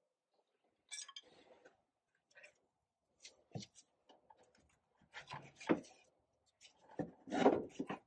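Irregular clinks, knocks and rubbing of hand tools against metal fittings during hose and clamp work, growing busier and loudest near the end.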